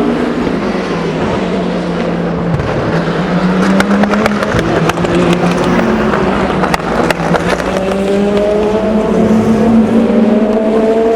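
Race car engines at a corner of the Le Mans circuit, more than one car at once. The engine notes drop and hold low with a run of sharp crackles in the middle, then climb steadily as the cars accelerate away.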